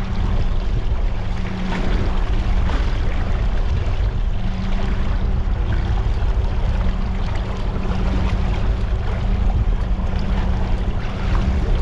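A fishing boat's engine running steadily, with a constant low hum under wind and water noise.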